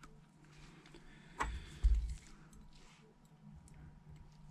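Light handling noise of small metal parts and tools while a bracket is fitted over an iPhone 8's earpiece speaker: a click about a second and a half in, then a louder knock half a second later. A faint steady hum lies underneath.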